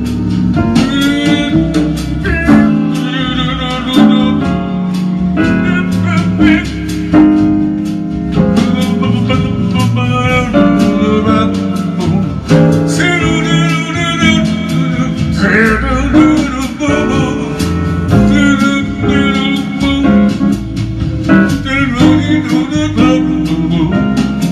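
Instrumental passage of a slow ballad backing track, a guitar to the fore over bass and chords.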